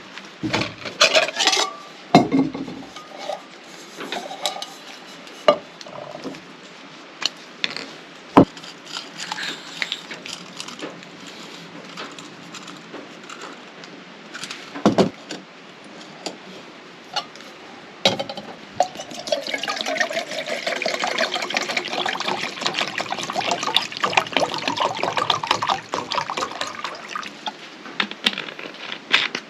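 Metal camp cookware clattering and knocking, then for several seconds liquid being poured into a pot.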